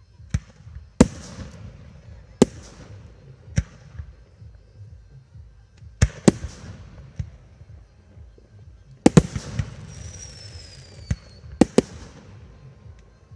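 Aerial fireworks going off: a series of about ten sharp bangs, some in quick pairs, each trailing off in an echo. A brief falling whistle comes about ten seconds in.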